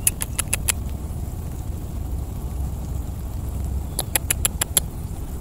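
Fingers tapping and splashing the shallow paddy water at an eel hole, a common lure for rice-field eels: two quick runs of small sharp splashes, about five at the start and about six some four seconds in.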